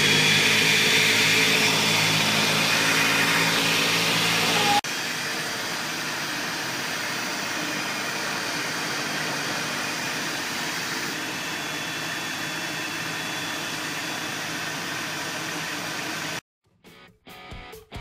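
Ninja Professional 1500-watt countertop blender running at speed, pureeing a jar of cooked quince and pear into sauce. The steady motor sound drops in level about five seconds in and stops abruptly near the end, where strummed guitar music begins.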